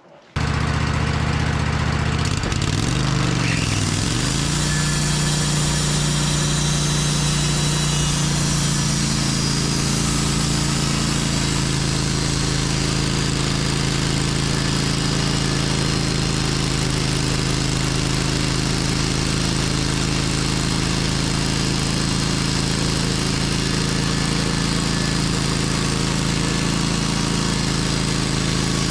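Portable sawmill's engine comes on suddenly and wavers in pitch for the first few seconds as it comes up to speed, then runs steadily.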